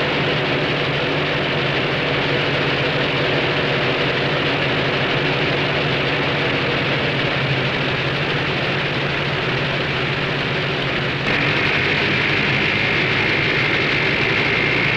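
Steady engine drone under heavy old-film soundtrack hiss, turning slightly louder with a higher steady hum joining about eleven seconds in.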